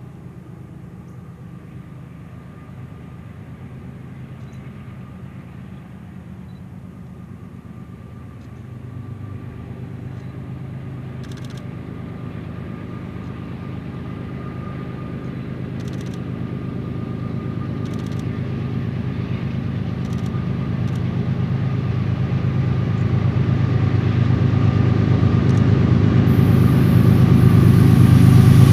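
Union Pacific GE diesel-electric locomotives approaching, their engines running with a steady low drone that grows louder as the train draws near.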